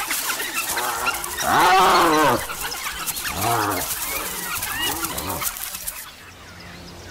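African wild dogs and a spotted hyena scuffling, with three loud calls that each rise and fall in pitch, the first the loudest, over a scatter of short high chirps. The sound drops away about six seconds in.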